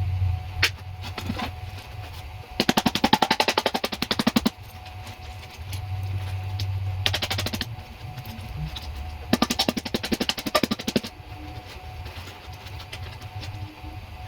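A power tool hammering in three bursts of rapid, evenly spaced impacts, about twenty a second: a long burst, a short one, then another long one.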